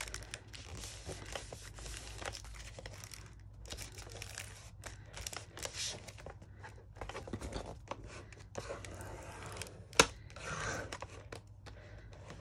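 Thick paper and envelope rustling and crinkling as the folded pocket is handled and pressed flat by hand, then rubbed along the fold with a bone folder near the end. A single sharp tap about ten seconds in.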